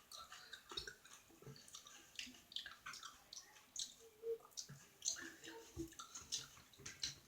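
Close, wet mouth noises of eating: irregular smacks, clicks and squelches of chewing juicy food.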